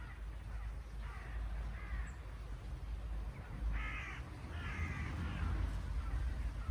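Birds calling: about four short calls, the loudest two around four and five seconds in, over a steady low rumble.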